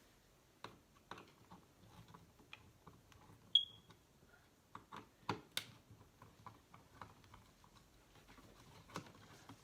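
Faint, irregular clicks and taps of a screwdriver and plastic mounting plate as an old smoke detector's ceiling fixture plate is unscrewed and taken off, with one short high-pitched ping about three and a half seconds in.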